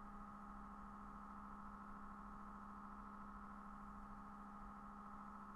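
Near silence with a faint, steady electrical hum and a higher-pitched tone above it.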